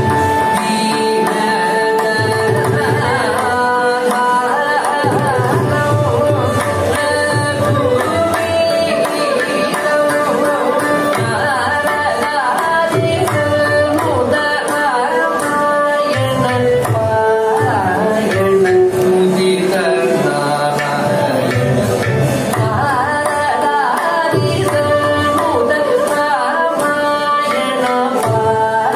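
Live Carnatic music: a male voice sings a melody full of sliding ornaments, a violin shadows it, and the mridangam and ghatam play a running rhythm underneath.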